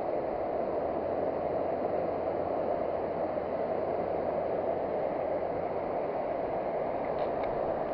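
Steady rush of sea surf breaking along the beach, an even noise with no distinct waves standing out.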